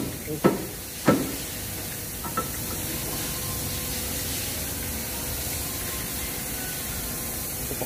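Two sharp metal knocks about half a second and a second in as the new Mazda CX-5 lower control arm is worked up into the ball joint by hand, then a steady hiss.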